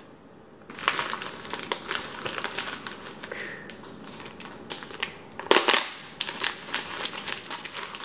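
Plastic packaging of frozen food crinkling as it is handled, starting about a second in, with a louder crackle around five and a half seconds.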